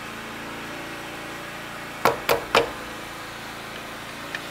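Three quick, sharp knocks about a quarter second apart from the handling of an electric car polisher while a foam pad is pressed onto its hook-and-loop backing plate. A steady low hum runs underneath.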